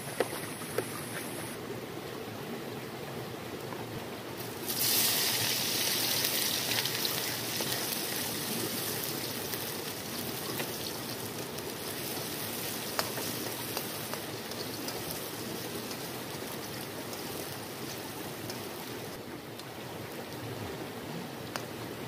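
A couple of knife taps on a plastic cutting board, then about five seconds in a sudden loud sizzle as food goes into hot oil in a steel wok on a portable gas stove, slowly dying down while egg is stirred in it. A steady river stream runs underneath.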